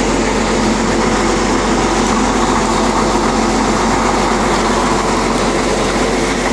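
Engine of a 1950s Koehring crane running steadily.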